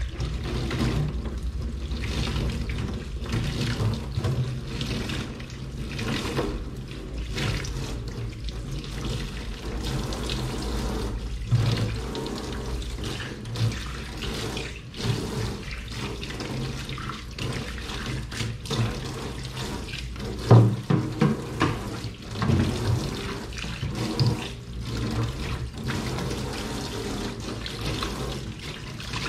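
Dishes being washed by hand under a running kitchen tap: a steady rush of water with scattered clinks and knocks of dishes, a louder cluster of knocks about two-thirds of the way through.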